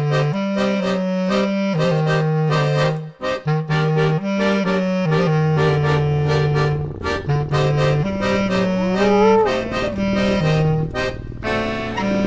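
Lively Balkan band music: a melody over a bass line that steps from note to note, with a regular beat and one bending, sliding note about nine seconds in.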